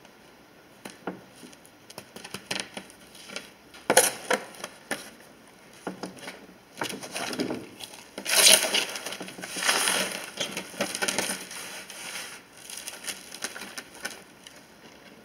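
Hands scooping and pressing loose potting soil into a small plastic plant pot: crumbly rustling and scraping, with a sharp knock about four seconds in. The rustling is thickest and loudest from about eight to eleven seconds, as the pot is filled.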